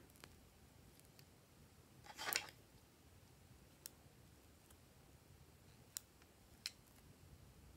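Scissors snipping pieces off lip balm sticks: a few sharp, short clicks, after a brief rustling scrape about two seconds in.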